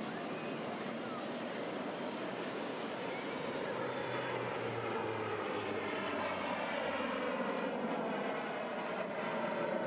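A fixed-wing aircraft's engines heard in flight: a steady rushing drone with gliding, shifting tones as the plane passes, growing a little louder near the end.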